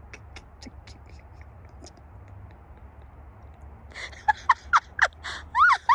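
A low steady rumble with faint clicks, then from about two-thirds of the way in a high voice making quick rising and falling sounds without words.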